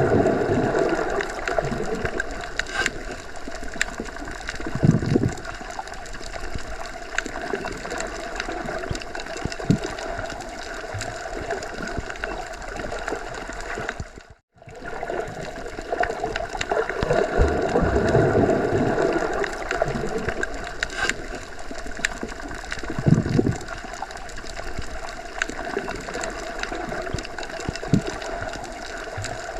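Underwater ambience: a steady muffled wash of water with gurgles and occasional low surges of bubbles. The sound cuts out completely for a moment about halfway through, then resumes.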